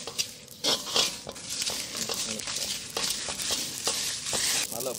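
A metal slotted ladle scrapes and stirs fennel and poppy seeds with dried red chillies in a large black wok as they roast, in repeated gritty scraping strokes with small clinks of metal on the pan.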